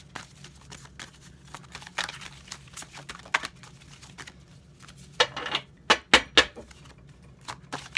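Oracle card deck being shuffled by hand: scattered flicks, slides and slaps of card stock, with a few sharper knocks about six seconds in.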